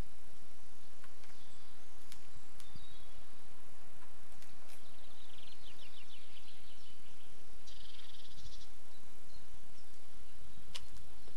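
Outdoor ambience with a steady hiss, and an insect chirping in two short rapid trills around the middle. A few sharp clicks sound near the start and again near the end.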